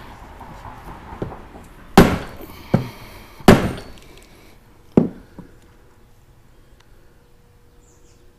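Mallet blows on the front snout of an LT4 supercharger: about six strikes over four seconds, the heaviest about two and three and a half seconds in. Each gives a sharp knock with a short ring. The snout is still firmly stuck on the supercharger body.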